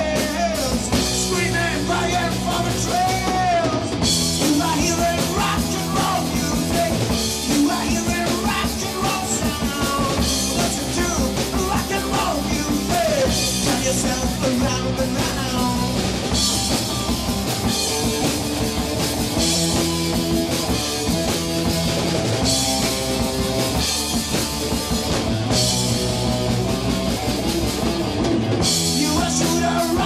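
A rock band playing live: electric guitars and a drum kit, with a man singing into a microphone.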